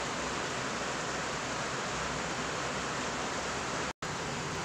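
Electric fan running: a steady rushing noise that cuts out for an instant near the end.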